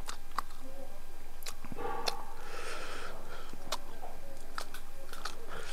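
Close-miked eating by hand: soft chewing with scattered sharp mouth clicks, and fingers picking through food on a banana leaf.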